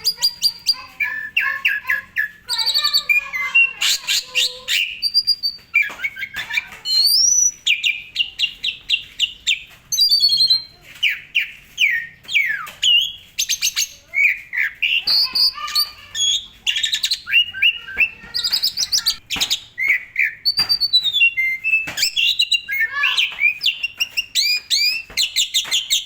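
Asian pied starling singing a long, unbroken, varied song of rapid chattering trills, whistled rising and falling notes and sharp clicks, with mimicked phrases from other birds' songs.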